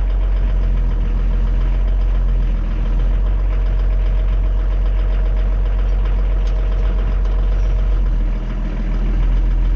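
Pinzgauer 716 army truck's engine running steadily, heard from inside the cab, as the truck creeps forward in first gear so that the vacuum-operated rear differential lock can engage. The level dips briefly about a quarter of the way in and again near the end.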